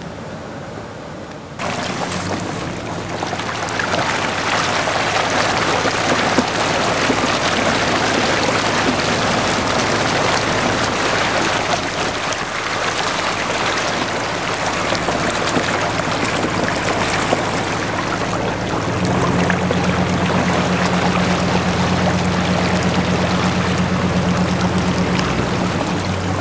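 Pickup truck driving through a deep muddy water hole: water rushing and splashing along its side, starting suddenly about a second and a half in, over the steady hum of the engine. The engine gets louder about three quarters of the way through.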